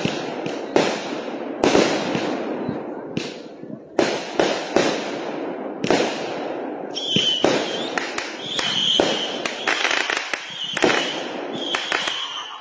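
Consumer aerial repeater fireworks firing: a rapid string of sharp bangs as shots launch and burst overhead. In the second half come crackling and brief high whistles about every second and a half.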